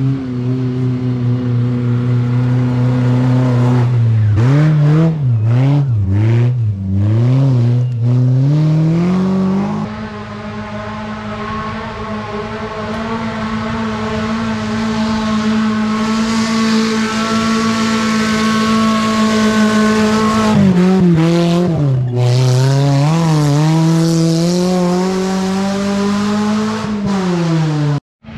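Off-road 4x4's engine working under load: revs rising and falling with the throttle, then held high and steady for about ten seconds, then rising and falling again before dropping away. The sound cuts off abruptly near the end.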